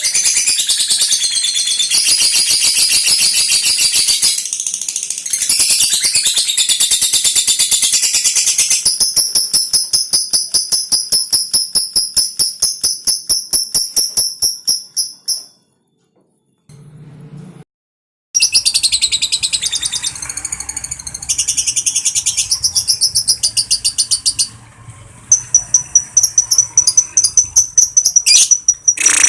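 Lovebird doing its long, rapid, high-pitched chattering trill ('ngekek'), a string of quick repeated notes. It breaks off about halfway for a couple of seconds, then starts again.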